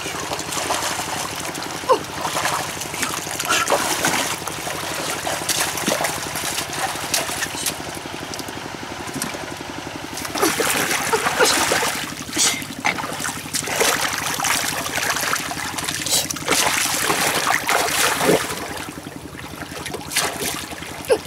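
Muddy water splashing, sloshing and trickling in irregular bursts as a person wades through a shallow pond and dips and lifts a mesh fishing net, water streaming out of the net.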